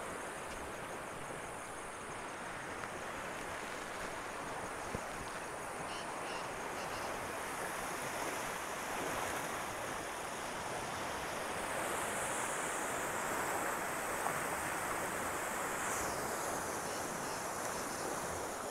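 Steady, even rush of a rain-swollen stream running in spate, fast muddy floodwater flowing through a drain channel after heavy rain.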